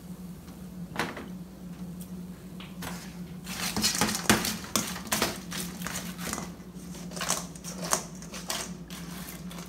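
Metal tongs clattering and scraping against a stainless steel bowl as saucy fried chicken wings are tossed. It starts with a single click about a second in and becomes a busy run of clicks and clatters from about three seconds in, over a steady low hum.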